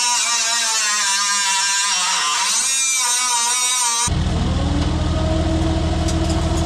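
Die grinder whining at high speed, its pitch sagging for a moment about two to three seconds in as it cuts into the metal. A little after four seconds it gives way abruptly to a vehicle engine idling with a low, steady rumble.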